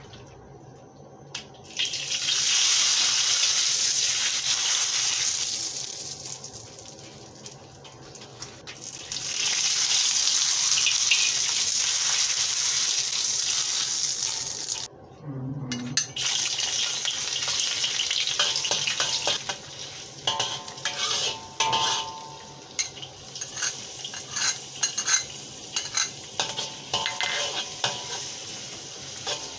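Hot oil in a wok sizzling loudly as chopped ginger and garlic are dropped in and fry, in two surges in the first half. In the second half the frying goes on with a metal wok ladle scraping and clinking against the wok as the aromatics are stir-fried.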